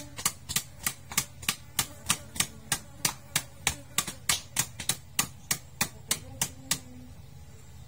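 Knife chopping fish on a wooden cutting board: sharp, even knocks about three a second that stop about seven seconds in.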